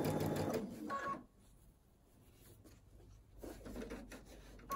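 Baby Lock Intuition computerized sewing machine stitching briefly, then stopping about half a second in while the fabric is turned at a curve. A short high tone sounds about a second in and again near the end, with quiet fabric handling in between.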